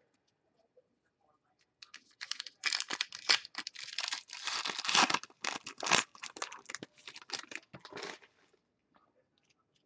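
A foil trading-card pack being torn open and its wrapper crinkled: a dense crackling and ripping that starts about two seconds in and dies away about eight seconds in.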